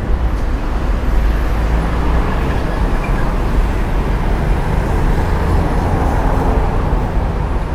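Steady city road traffic noise: a dense, loud low rumble with no single vehicle standing out.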